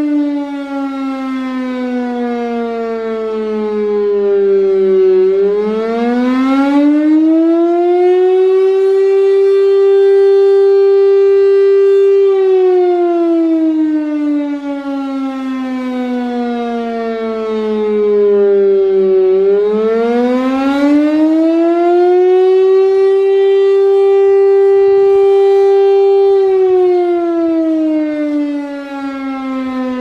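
Federal Signal STL-10 three-phase, single-tone chopper siren sounding an attack signal in a weekly test. The pitch winds up in a few seconds, holds steady for about four seconds, then slowly winds down, the cycle repeating about every 14 seconds.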